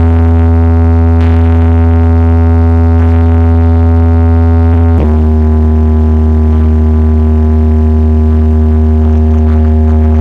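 A large DJ speaker stack playing a deep held note at high volume during a sound test, with heavy bass. The note shifts to a different pitch once about five seconds in.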